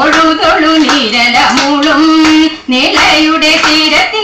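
Women singing a Thiruvathirakali song with rhythmic hand claps keeping time for the Kaikotti Kali dance, with a short break between sung lines about two and a half seconds in.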